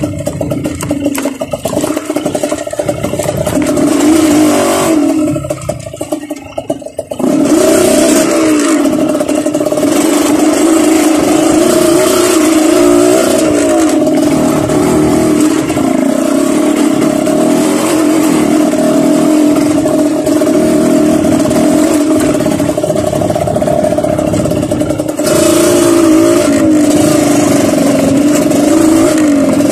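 Dirt bike engine running under throttle on the trail, its pitch wavering up and down. It drops back about five to seven seconds in, then picks up again and runs steadily.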